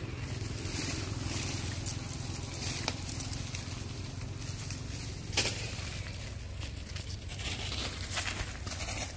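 Dry leaves and twigs rustling and crackling with movement, over a low steady rumble, with one sharp click about five and a half seconds in.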